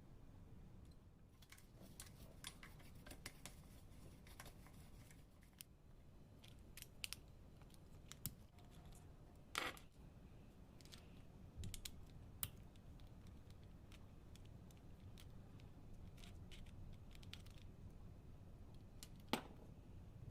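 Faint scattered clicks, taps and light scrapes of small hard parts being handled during the cleaning of a coffee grinder, with a louder tap a little before the middle and another near the end, over a low steady hum.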